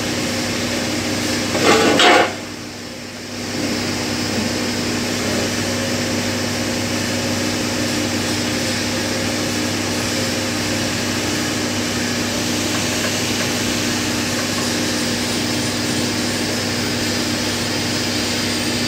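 Steady machine hum with several fixed tones. About two seconds in, a short loud noise is followed by a second or so of quieter hum before it returns.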